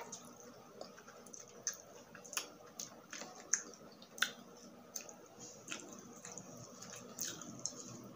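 Close-miked mouth sounds of a person eating grilled, sauce-glazed street food: wet squishes with irregular sharp clicks and smacks as she chews.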